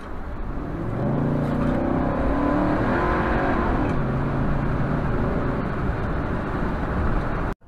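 Car engine accelerating with road and tyre noise, heard from inside the cabin; the engine note grows louder about a second in and holds steady, then cuts off suddenly near the end.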